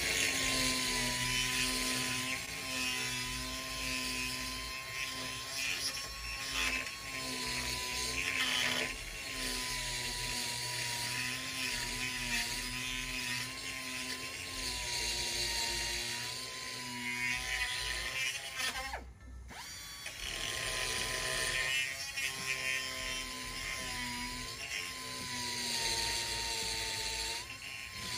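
Quarter-inch pneumatic straight die grinder running at high speed, its burr grinding metal to open a hole wider: a steady, slightly wavering high whine with a rasping grind that swells and fades as the burr bites. About two-thirds of the way through the air is released for a moment: the whine winds down and then spins back up.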